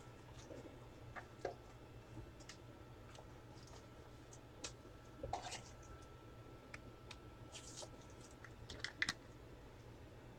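Faint, scattered clicks and light taps of football trading cards being handled and flipped through.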